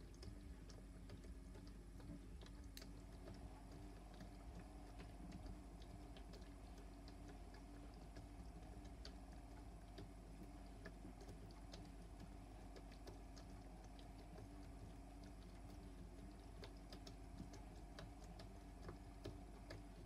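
Toy front-loading washing machine running a wash: its small motor gives a faint steady hum as the drum turns, with scattered light clicks and ticks throughout.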